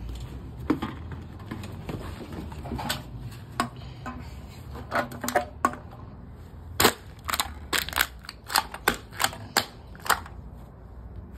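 A string of sharp clicks and knocks from handling a soft-sided cooler and an aluminium beer can: a few scattered knocks at first, then a quick run of about nine sharp clicks from about seven to ten seconds in.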